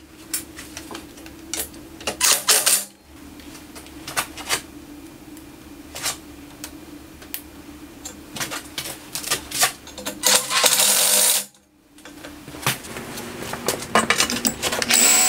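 Irregular clicks, taps and knocks of hands handling metal switch fittings and cable clips on a steel frame, over a steady low hum. Two brief hissing bursts come through, one a couple of seconds in and one about ten seconds in.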